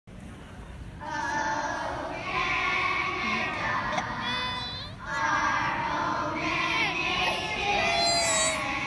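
Children's school choir singing in a hockey arena, with crowd noise underneath. The singing comes in about a second in and pauses briefly around the middle before carrying on.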